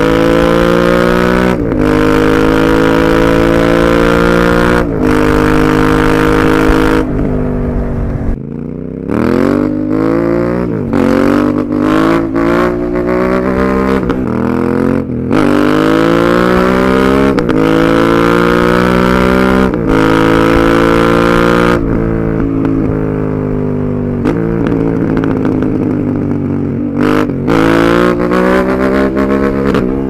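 Honda Africa Twin 1100's parallel-twin engine under hard acceleration. It revs up again and again, with a brief dip in pitch at each upshift. The revs fall away about eight seconds in before climbing again through the gears, ease to a lower steady pull about two-thirds of the way through, then rise once more near the end.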